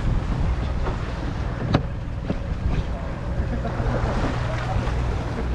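Sportfishing boat's engine running with a steady low hum, under wind on the microphone and the wash of the sea. A sharp click comes about two seconds in.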